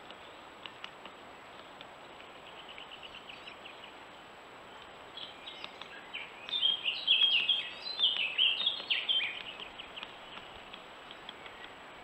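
Small songbirds calling: a faint rapid series of high notes a few seconds in, then a louder burst of quick chirping calls for about five seconds, over a steady background hiss.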